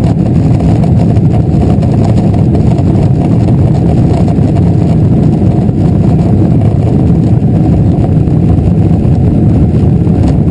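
Steady, loud cabin rumble of a Boeing 777-300 rolling on the ground after landing: the jet engines running low and the wheels on the pavement, heard from a window seat over the wing.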